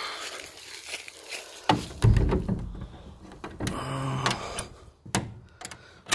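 A heavy low thump of handling and footsteps, then a short low hum, then a quick run of sharp metallic clicks as the over-centre toggle latch and R-clip on a cargo trailer's door are handled.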